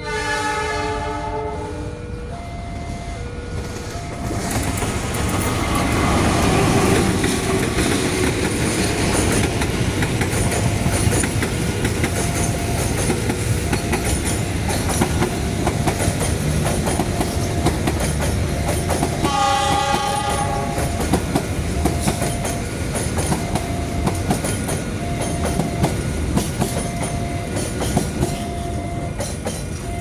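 Diesel-hauled Prameks passenger train sounding its horn, a blast of several tones at once, then running past close by with a heavy rumble and wheels clacking over the rail joints; a second horn blast comes about two-thirds of the way through. A level-crossing warning signal sounds a short tone about once a second throughout.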